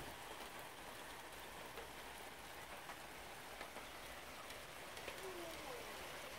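Light rain falling, a faint steady patter of raindrops.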